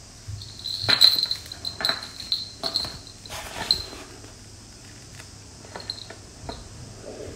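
Small bell on a cat's collar jingling in quick clinks as the cat grabs and bites a cord toy, with light knocks and scuffs on a wooden floor. The jingling is busiest in the first few seconds and thins out after.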